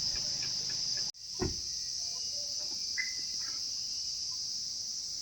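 Insects chirring in a steady high-pitched drone. About a second in the sound cuts out for an instant, then comes a single dull thump.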